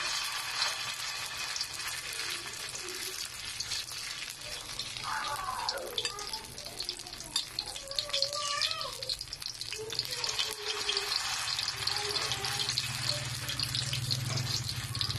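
Banana blossom and ground pork torta batter frying in hot oil in a metal wok: a steady crackling sizzle. Faint voices can be heard in the middle, and a low hum strengthens near the end.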